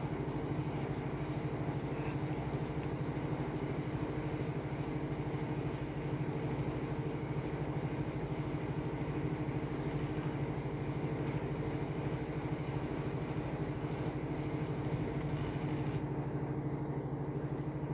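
Washing machine in its spin cycle, the drum spinning at a steady high speed with an even, unchanging hum.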